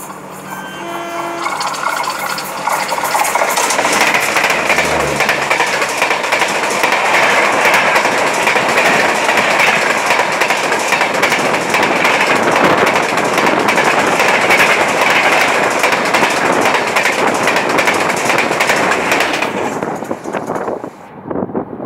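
An Indian Railways WDP3A diesel locomotive passes close by on the next track, its engine tone sweeping past about five seconds in. The express coaches behind it follow with loud, steady wheel-and-rail noise that drops away abruptly as the last coach clears, about twenty seconds in. A few short horn notes sound at the very start.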